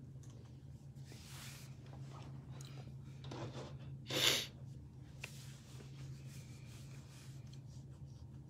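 Quiet room tone with a steady low hum and a few short hissing noises, the loudest a brief burst about four seconds in.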